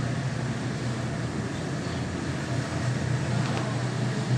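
A machine running with a steady low drone under a continuous noisy hiss.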